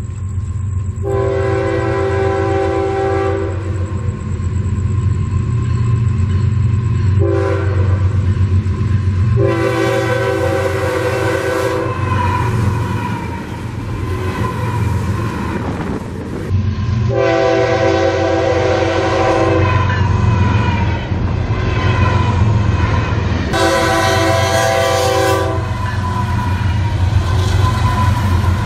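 Florida East Coast Railway freight locomotive, LNG-fuelled, sounding its horn for a grade crossing in five blasts: a long one, a short one, then three long ones. Under the horn runs the steady low rumble of the locomotives and train as they approach and roll past.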